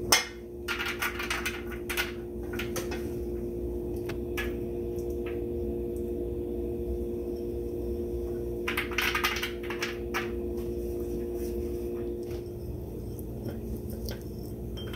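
Seasoned butternut squash seeds scooped by hand from a glass bowl and dropped onto a metal baking tray, clicking as they land in scattered clusters, with one sharp click right at the start and another busy cluster about nine seconds in. A steady low hum runs underneath, part of it stopping near the end.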